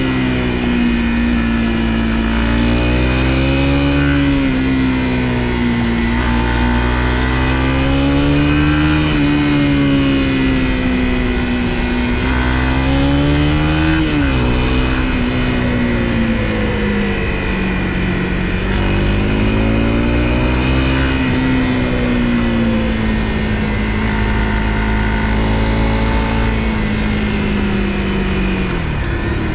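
Honda CRF250L's single-cylinder engine running on the road, its pitch rising and falling again and again as the throttle opens and closes, with a sharp drop in pitch about halfway through and again near the end.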